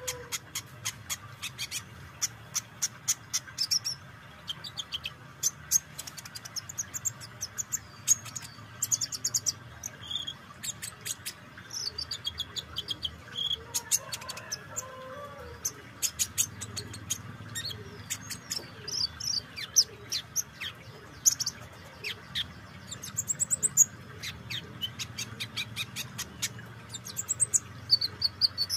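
Van Hasselt's sunbird (kolibri ninja) singing: long runs of very high, sharp chips fired in quick series, mixed with short trills, broken by brief pauses.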